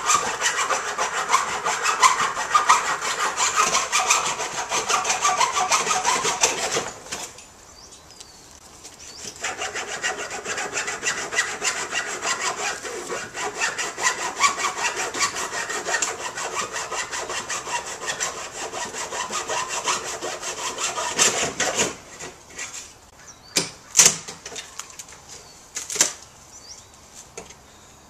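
Hand saw cutting wood with quick back-and-forth strokes, in two spells with a short pause between, the second longer. A few sharp knocks follow near the end.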